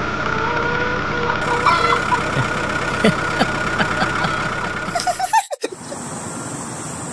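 Steady truck-engine running sound for a toy dump truck, with scattered small clicks and knocks. About five and a half seconds in it ends in a quick falling sweep and gives way to a steady, quieter hiss.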